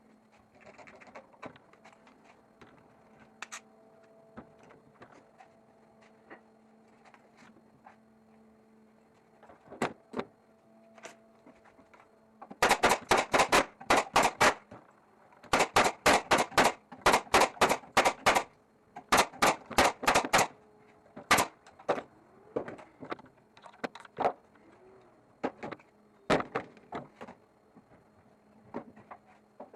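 Nails being driven into wood in quick runs of sharp strikes, about five a second, starting about twelve seconds in and lasting some eight seconds, then scattered single strikes. Before that only faint clicks of the workpiece being handled.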